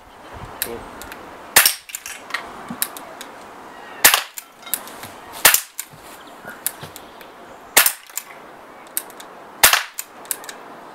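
Walther PPQ .177 CO2 air pistol, the non-blowback model, fired five times about two seconds apart, each a sharp crack of released gas. Fainter clicks and knocks come between the shots.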